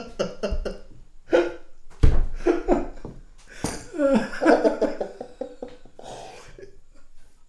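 Two men laughing helplessly in short, broken bursts, with a thump about two seconds in.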